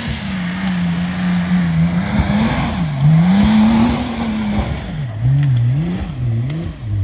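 Off-road 4x4's engine revving under load, its pitch rising and falling. About five seconds in it is blipped up and down quickly, roughly twice a second, over a steady rushing noise.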